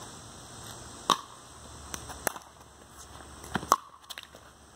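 Pickleball rally: several sharp pocks of paddles hitting the hollow plastic ball, the loudest about a second in and again late on.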